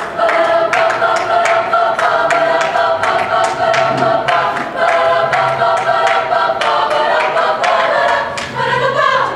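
Women's choir singing a cappella vocal jazz: a rhythmic passage of short, clipped syllables in close harmony, with the voices sliding upward in pitch near the end.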